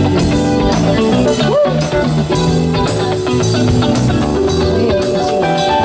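Live band playing an instrumental groove: electric guitar, bass guitar, keyboard and drum kit with a steady beat.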